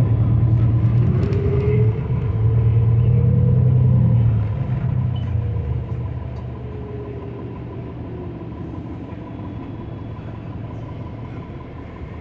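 2019 New Flyer XD40 bus with its Cummins L9 engine pulling hard, a whine rising in pitch over the first few seconds. After about four seconds it eases off, the whine falls away and the drone settles lower, with a faint steady high tone throughout.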